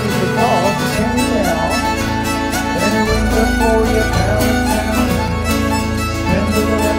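Live contra dance tune: a Swedish nyckelharpa bowing a lively melody over a baritone guitar playing chords and bass notes, the bass shifting a couple of times.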